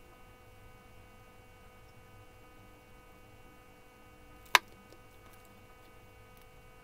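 Faint, steady electrical hum from the bench electronics, with several evenly spaced overtones. One sharp click comes about four and a half seconds in.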